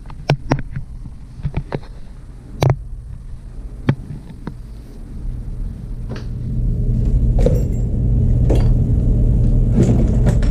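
Screwdriver and small metal parts clicking and tapping against a Stihl MS290 chainsaw's clutch as the retaining clip is worked loose. About six seconds in, a steady low hum starts up and grows louder, then holds and drowns out the taps.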